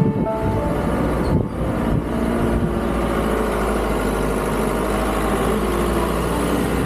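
SUV engine running as the vehicle climbs a steep, rough hill road, with steady road and wind noise on an outside-mounted microphone.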